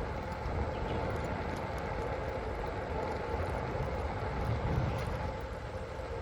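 Steady riding noise picked up by a phone strapped to the rider's body: a low rumble and rushing wind on the microphone, with a faint steady whine.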